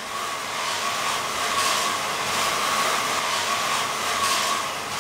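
Steady whooshing blower noise with a constant whine over it, as from a kitchen extractor fan running.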